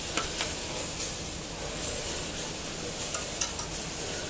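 Scattered light clicks and clinks of a tray denester's metal parts being handled by hand during adjustment, over a steady background hiss.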